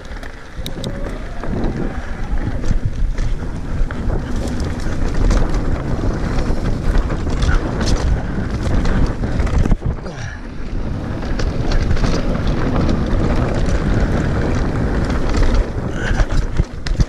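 Wind buffeting the microphone of a mountain bike riding fast down a dirt singletrack, with the tyres rumbling over the trail and short rattles and clicks from the bike over bumps.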